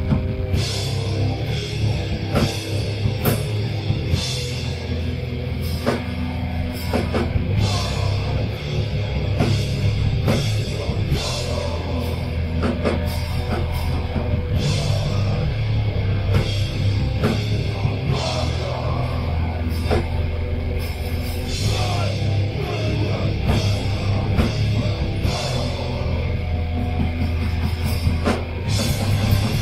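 Live metal band playing loud: distorted electric guitars and bass over a drum kit, with frequent cymbal crashes.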